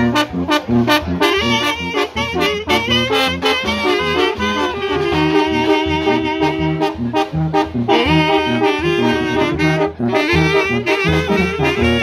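Brass band music: horns and saxophones playing a melody over a pulsing bass line with a steady beat.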